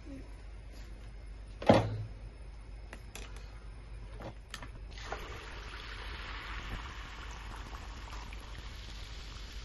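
Rice-flour batter poured into hot oil in a cast-iron pan, sizzling steadily from about five seconds in. A single sharp knock about two seconds in is the loudest sound, with a few faint clicks after it.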